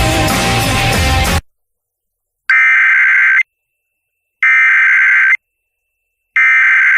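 Radio music cuts off abruptly about a second and a half in. Then come three one-second bursts of Emergency Alert System SAME header data, a shrill buzzing digital tone repeated about once every two seconds, which marks the start of an EAS alert broadcast.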